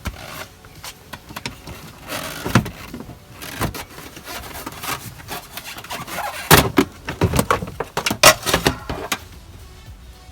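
Plastic inner wheel-arch liner being pulled out of a car's front wheel well: irregular knocks, scrapes and plastic rattles, busiest and loudest in the second half.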